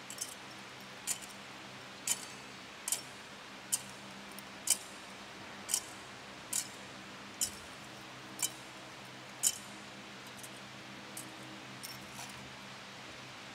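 A series of about ten sharp, bright metallic clinks, roughly one a second, fading to a few fainter ones near the end, over a faint steady low hum.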